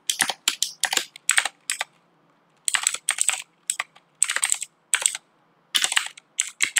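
Typing on a computer keyboard: quick runs of sharp keystrokes with short pauses between them, and a longer pause about two seconds in.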